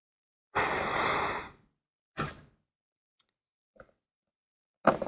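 A person's long breathy sigh close to the microphone, about a second long, then a shorter breath about two seconds in and a couple of faint clicks.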